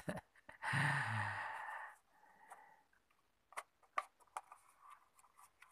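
A man sighs, a breathy, lightly voiced exhale about a second in. After it come a few light clicks and taps as the plastic VR Box headset is handled.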